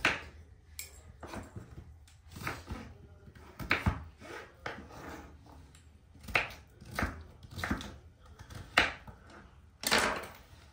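Kitchen knife dicing a raw potato on a wooden cutting board: irregular sharp knocks of the blade on the wood, roughly one a second, with a longer, louder stroke near the end.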